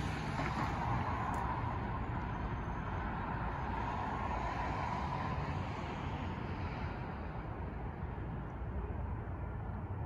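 Distant traffic noise: a steady low rumble with a vehicle passing, its sound fading away over the first several seconds.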